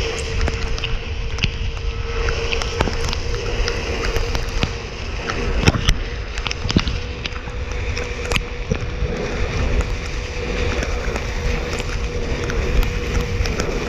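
Onewheel electric board riding over a wet path in the rain: wind rush and tyre hiss on the wet pavement under a steady motor whine. Scattered sharp ticks of raindrops hitting the camera, the loudest about six seconds in.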